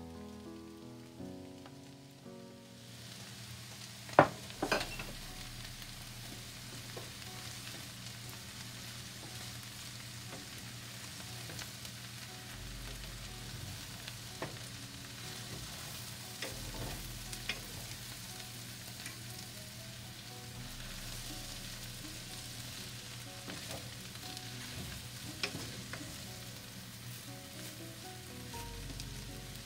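Meat and peas sizzling in a stainless steel pan while being stirred with a wooden spoon. The sizzle starts a couple of seconds in, with a few sharp knocks of the spoon against the pan, the loudest about four seconds in.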